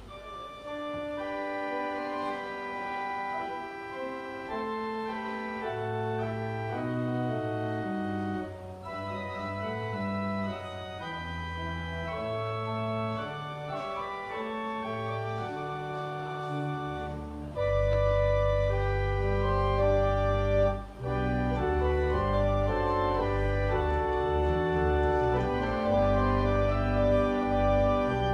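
Church pipe organ playing a voluntary: a lighter passage of moving sustained notes, then about two-thirds of the way through it grows louder with a deep held bass note under fuller chords.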